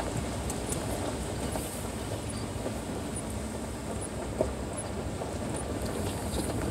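Steady low rumble of a Toyota pickup truck's engine and tyres, heard from inside the cab as it crawls down a steep mountain road in first gear. A few faint ticks and rattles sound over the rumble.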